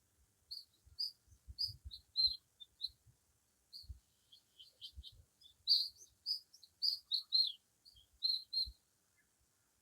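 A small songbird chirping: a rapid string of short, high chirps with brief pauses, denser in the middle and stopping shortly before the end.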